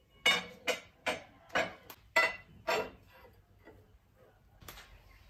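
Steel angle iron being set down and shifted on the steel bed ways of a homemade lathe: about six sharp metal clanks with a short ring in the first three seconds, then a few fainter knocks.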